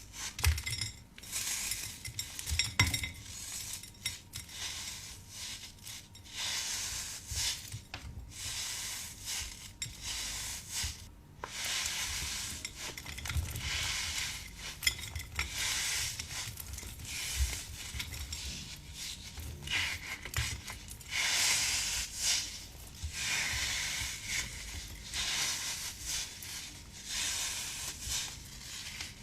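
Slime being stirred and pressed, crackling and clicking in uneven spells.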